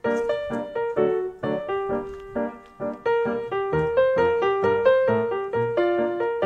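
Background piano music: a melody of quickly struck notes, each ringing and fading, a few notes a second.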